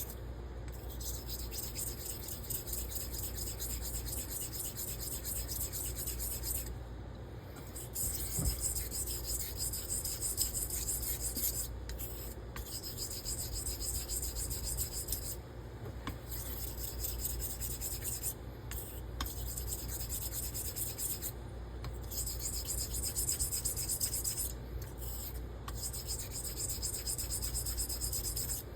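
Straight razor being honed in laps on a slurried coarse honing stone, the 1200-grit Pyrenees side of a combo stone, to set the bevel: a steady scraping hiss of blade on stone, stopping briefly several times.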